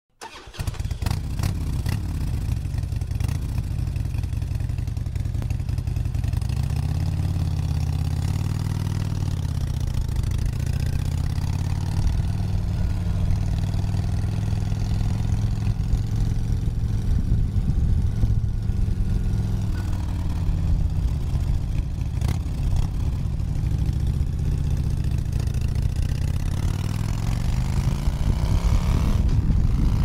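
Harley-Davidson V-twin motorcycle engine starting up, then running with its revs rising and falling a few times and climbing again near the end.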